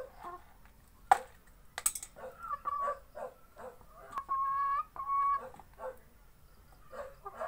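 Hen clucking in a run of short calls, with two longer, steady drawn-out calls about four and five seconds in, and a sharp tap about a second in.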